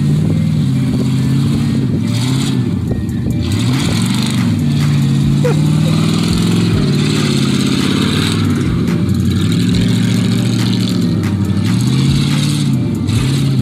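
1998 GMC Sierra 4x4's 5.7-litre V8 revving up and down again and again as the pickup spins in snow, with a hiss of spinning tyres and thrown snow.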